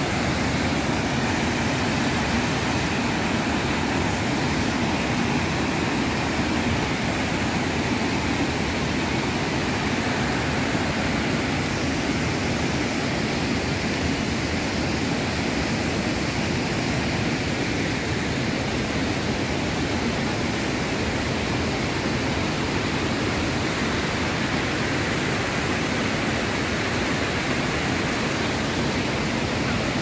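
Štrbački buk, a wide tiered waterfall on the Una river, pouring over its falls: a steady, unbroken rush of falling water.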